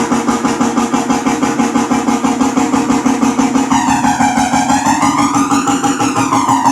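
Car-audio sound system playing a midrange test track: a loud, fast-pulsing buzz repeating about five times a second, with a sweeping, phasing filter that starts moving up and down about four seconds in.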